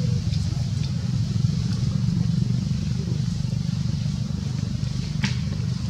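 A steady low rumble, with one sharp click about five seconds in.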